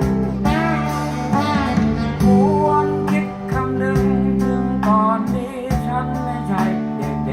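A song with guitar and singing, played through a 3-inch full-range speaker for a sound test.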